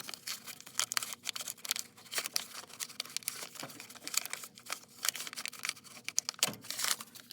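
Irregular small metallic clicks and scrapes of a hand tool driving screws to fasten a furnace draft inducer fan to its housing, with a louder scrape near the end.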